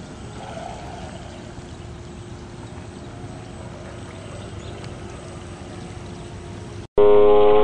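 Water splashing and lapping around a small electric RC scale speed boat running slowly, with a faint steady motor whine. About seven seconds in, a sudden cut brings a much louder steady whine made of several tones.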